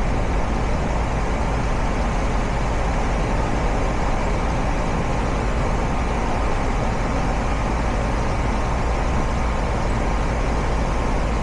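Heat-pump outdoor unit running steadily: its condenser fan and Copeland scroll compressor make a constant low hum with an even whooshing noise over it.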